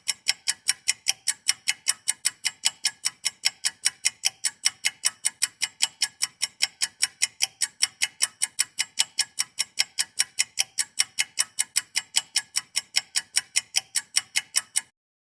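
Rapid, even ticking like a clock sound effect, about four or five ticks a second, that stops abruptly near the end.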